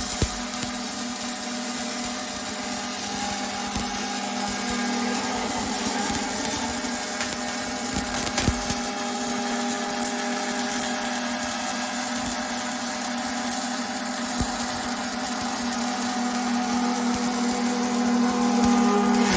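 MIG welding arc laid down by a welding robot, running continuously as a steady hiss with a low hum underneath and occasional sharp clicks.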